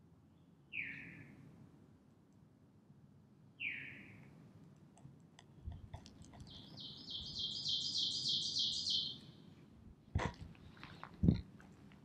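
Wild birds in a forest: two short falling call notes, about a second in and again near four seconds, then a fast song phrase of about ten rapid repeated high notes lasting around two and a half seconds. A few sharp thumps follow near the end, the last one loudest.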